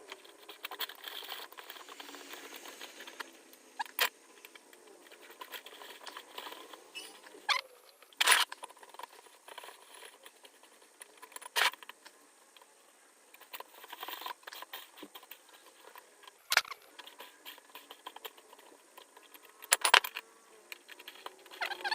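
Handling noise: scattered sharp clicks and knocks, about six of them a few seconds apart, the loudest about eight seconds in and near the end, with light rattling and jingling between.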